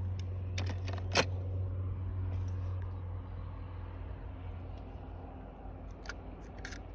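Small diecast toy cars clicking and tapping as they are handled, a few sharp clicks with the loudest about a second in, over a steady low hum.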